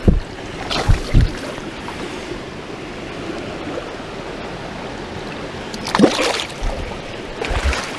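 River water rushing steadily, with a few low thumps and a short sharper sound about six seconds in.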